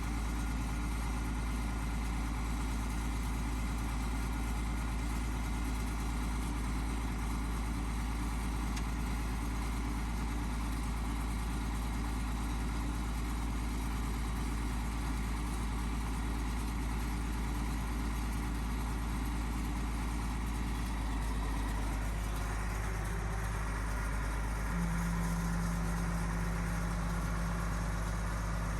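Bulldozer's diesel engine running steadily. About 21 seconds in its note changes, and a few seconds later a steady low hum joins it.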